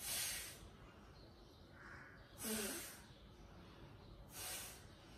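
A woman's forceful breaths during a leg-raising exercise: three short rushes of air about two seconds apart, the middle one with a brief voiced sound.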